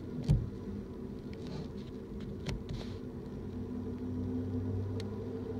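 BNSF intermodal freight train passing: a steady low rumble of the cars rolling on the track. A sharp clank comes about a third of a second in, with fainter clicks later, and a low hum grows a little louder near the end.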